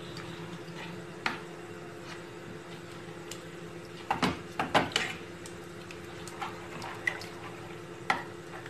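A spoon stirring amchur powder into water in a metal pan: liquid swishing, with several sharp clinks of the spoon against the pan, a cluster of them near the middle.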